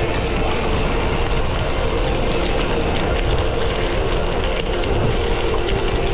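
Gravel bike rolling along a forest gravel trail on Panaracer GravelKing SS 38 mm tyres: a continuous rumble and crunch of the tyres on gravel, mixed with wind noise on the action camera's microphone. A steady hum and small clicks run through it.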